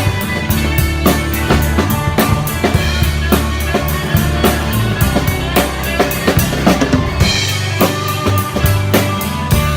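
Live band playing an instrumental passage: a drum kit beat with closely spaced cymbal and snare hits and kick drum over bass and guitar. The band stops just after the end.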